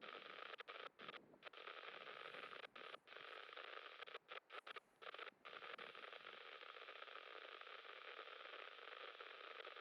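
Faint hiss of static from a marine VHF radio between transmissions, cutting out briefly several times in the first half and then running on steadily.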